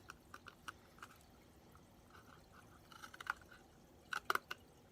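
Scissors cutting a cardboard toilet-paper tube: a run of small crisp snips and crunches, the loudest group near the end.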